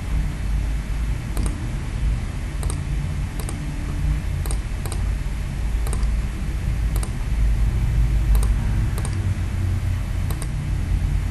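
Computer mouse clicks, about ten scattered single clicks with a couple of quick pairs, over a steady low background rumble.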